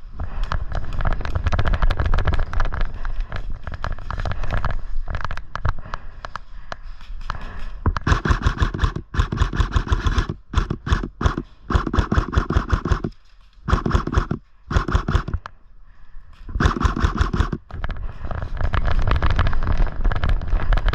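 Airsoft guns firing rapid automatic bursts, several bursts broken by short pauses, strongest in the middle, with a low rumble underneath.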